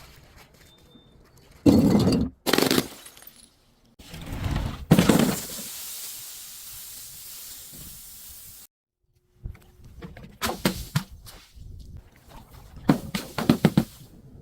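Things being crushed and broken: loud crunches about 2 and 3 seconds in, a longer crunch around 4–5 seconds trailing into a steady hiss that cuts off suddenly, then clusters of sharp cracks and clicks later on.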